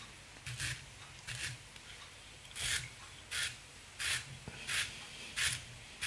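Velcro brush scraped hard through the synthetic dubbing fibres of a streamer fly, brushing them out: seven short scratchy strokes, with a pause of about a second after the second stroke.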